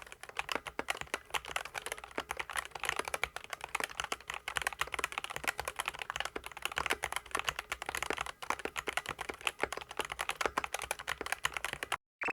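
Fast, continuous typing on a SKYLOONG GK75 mechanical keyboard, its SKYLOONG optical yellow linear switches clacking under PBT keycaps. The typing stops just before the end, followed by a short falling tone.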